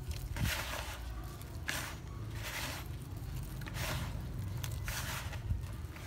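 Hands squeezing and kneading a damp bran-and-banana fishing bait mash, with a run of irregular noisy strokes roughly once a second.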